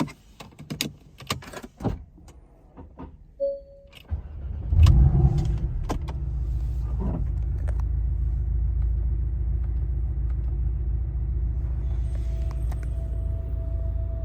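Several clicks and a short beep, then the Porsche Boxster's engine starts about four seconds in. It flares up briefly and settles into a steady idle.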